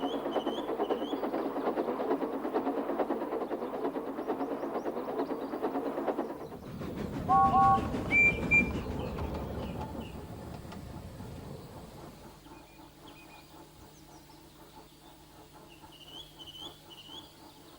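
Steam locomotive running along the line with rhythmic chuffing and wheels clicking over rail joints. It gives a short two-note whistle about seven seconds in, then the running sound fades away into the distance. Birds chirp in the background.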